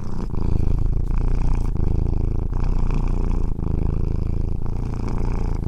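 A pet's low rumbling, continuous but broken into breath-length pulses about a second or more long, with short dips between them.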